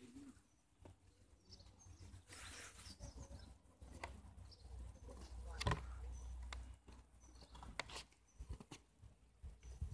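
Quiet outdoor background on a phone microphone: low wind rumble and a few handling knocks, with faint, scattered bird chirps.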